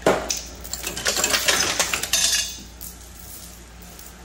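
Steel lifting chain of an engine support bar rattling and clinking as it is unhooked and pulled away from the engine, for about two and a half seconds, then dying down.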